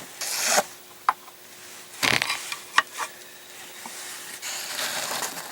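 Resized 9mm Luger brass cases being handled: short rustles and a few light, sharp clicks, about a second in and again near three seconds in, over a faint steady hum.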